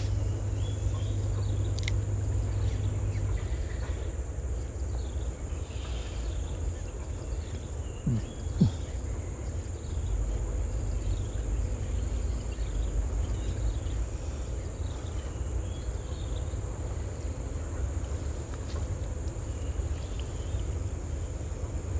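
Insects keeping up a steady, high-pitched trill over a low rumble of wind or water, with faint scattered chirps and a brief tick about eight seconds in.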